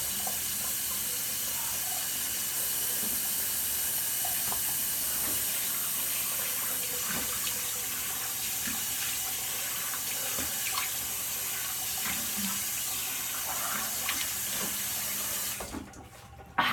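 Water running steadily from a sink tap while a face is washed, with faint small splashes. The tap shuts off suddenly about a second before the end.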